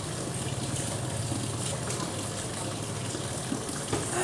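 Steady fizzing hiss of fine gas bubbles rising through water in a plastic bottle as the water is split into hydrogen and oxygen by electrolysis. A low steady hum runs underneath, and there is a soft knock near the end.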